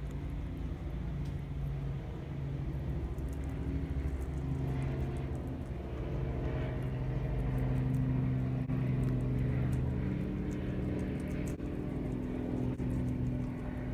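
A steady low engine hum, its pitch shifting slightly and growing louder in the middle, over faint crisp clicks of guinea pigs chewing lettuce.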